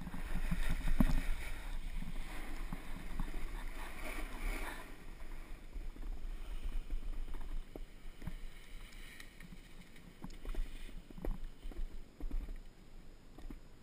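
Snowboard sliding and scraping over groomed snow, loudest in the first five seconds while the rider is moving, then quieter with a few scattered small knocks as the board slows to a near stop.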